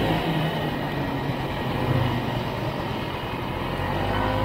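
Vintage Ski-Doo snowmobile's two-stroke engine running while riding over snow, easing off a little about three seconds in and then picking back up.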